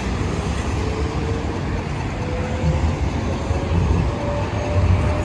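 Street tram running past, its electric motor whine slowly rising in pitch over a steady low traffic rumble.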